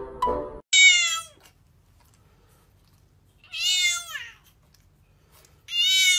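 A young cat meowing three times, about a second in, in the middle and again at the end, each a high cry that drops in pitch as it ends. A snatch of music stops abruptly just before the first meow.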